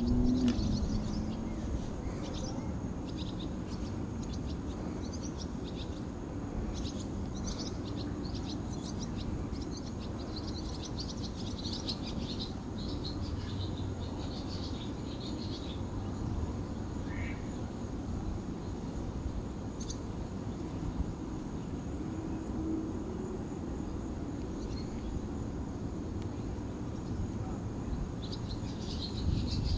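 Small birds chirping, many short high calls, busiest through the first half and again near the end, over a steady low rumble.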